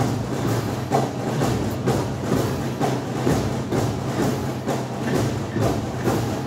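School brass band playing: sustained low brass notes over a steady marching drum beat.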